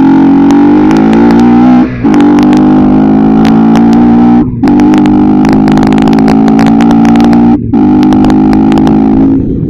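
Bajaj Pulsar NS160 single-cylinder engine, fitted with an aftermarket air filter, running loud and steady under way. Three brief drops in the engine note break it, about two, four and a half, and seven and a half seconds in.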